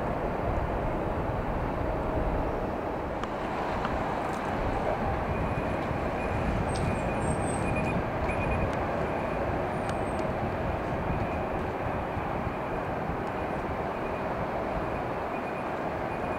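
Jet engines of a taxiing Boeing 767, a steady rumbling noise with a faint high whine.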